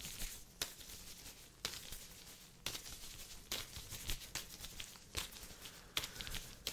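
Disposable exam gloves crinkling and swishing close to the microphone as gloved hands sweep past, in short strokes about once a second.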